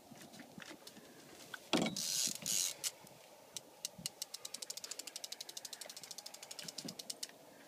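Fishing reel clicking in a fast, even run of about ten clicks a second, the drag giving line as a hooked white sturgeon swims off from the boat. Before it, about two seconds in, a sudden loud rush of noise lasting about a second.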